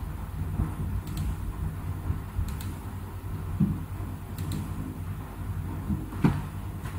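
Steady low background hum with a few faint clicks, like mouse clicks, spread through it; one click near the end is a little stronger.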